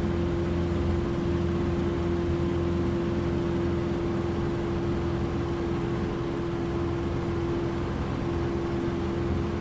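Cessna 150's Continental O-200 four-cylinder engine and propeller running steadily at full takeoff power during the climb after liftoff, a constant drone with one steady tone.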